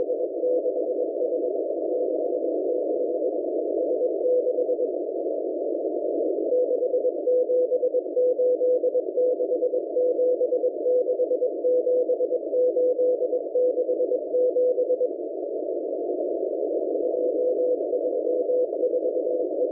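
M01 numbers station sending Morse code numbers, received on a shortwave radio: a single beeping tone keyed on and off in dots and dashes over steady static hiss, heard through a narrow receiver filter. The keying stops twice for a couple of seconds, leaving only the hiss, about five seconds in and again about fifteen seconds in.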